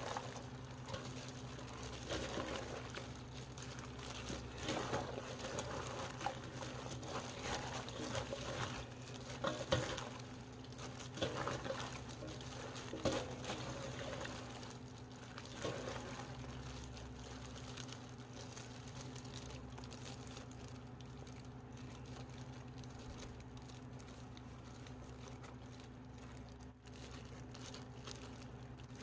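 Hands working wet young-radish greens: irregular soft wet rustling and patter, busiest in the first half and thinning out later, over a steady low electrical hum.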